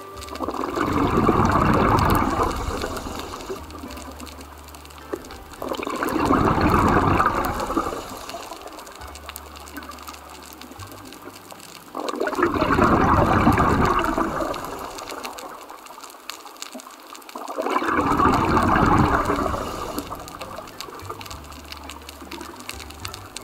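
Scuba diver's exhaled breath bubbling out of the regulator underwater, four times, each burst about two seconds long and about six seconds apart.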